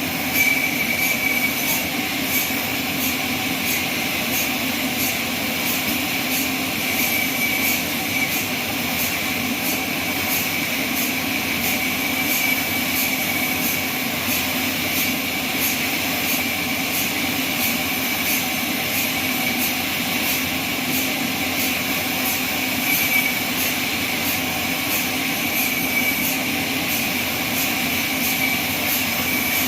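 Band sawmill running with a steady mechanical hum and a faint high tick repeating about twice a second.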